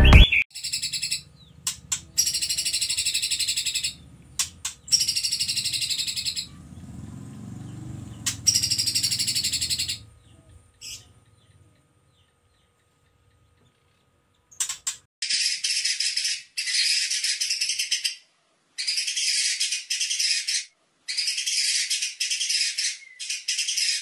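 White-rumped shama (murai batu) singing 'tembakan': bursts of loud, dense, rapid-fire repeated high notes, each lasting one to three seconds, with a pause of a few seconds near the middle. These are the fighting song bursts that songbird-contest judges score.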